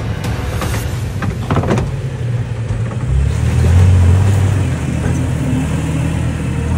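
Toyota Tacoma pickup's engine running under load as it crawls over rocks, swelling to its loudest about halfway through. A few sharp clicks and scrapes come early on, typical of tyres on rock and gravel.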